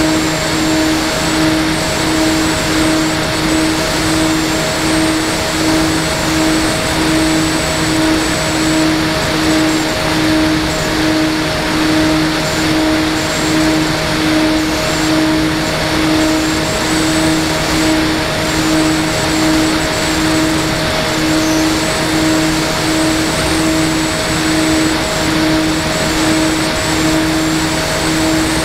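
Electric motor and propeller of an FPV model aircraft running at constant power in flight. It makes a steady hum that pulses evenly about one and a half times a second over a loud rush of hiss, with a faint high whine above.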